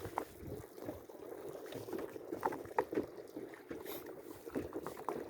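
Boat on the water with a steady rumble and wash, with scattered light knocks.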